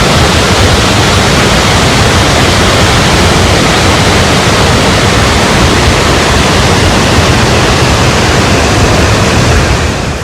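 Waterfall pouring, a loud steady rush of water that fades near the end.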